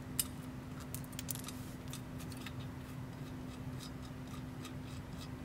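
Light metallic clicks and ticks as a bolt and nut are handled and threaded by hand on a small metal bracket: a cluster of sharper clicks in the first second and a half, then scattered fainter ticks. A steady low hum runs underneath.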